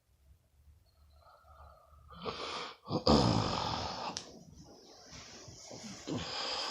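A sleeping person snoring. A short breath comes about two seconds in, then a loud rough snore about three seconds in that trails off over a second or so. Another long noisy breath builds near the end.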